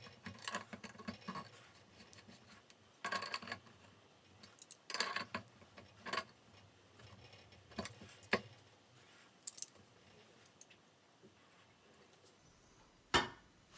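Metal and plastic faucet parts of a Delta two-handle faucet clicking, scraping and rattling as they are fitted back together by hand: scattered short clicks at irregular times, with one sharper click near the end.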